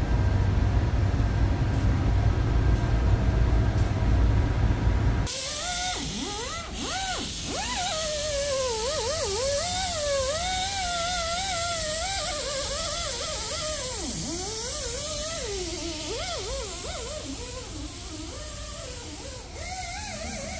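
A steady low machine rumble for about five seconds, cut off abruptly. Then background music: an electric guitar line with wide, wavering pitch bends over a steady hiss.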